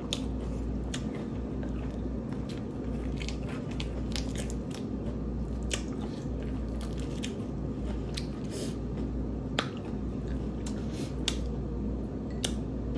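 Close-miked seafood-boil eating sounds: scattered crisp clicks and wet crackles of shell-on shrimp being peeled by hand, with biting and chewing, over a steady low hum.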